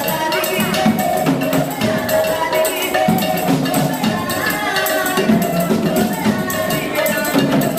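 Live traditional Nigerian ritual-dance percussion: hand-held frame drums beaten in a steady rhythm together with small jingling and knocking percussion.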